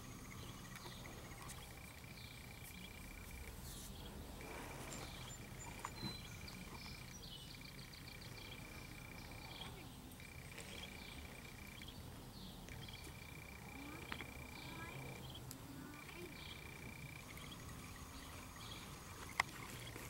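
Rural outdoor ambience: a high, steady trill repeats in stretches of a few seconds with short gaps between, over scattered bird chirps, with a few faint sharp knocks.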